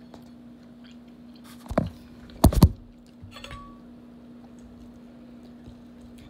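Handling noise of a phone being laid down on a table: a knock, then a louder double thump a moment later, followed by a few light clicks and rustles. A steady low hum runs underneath.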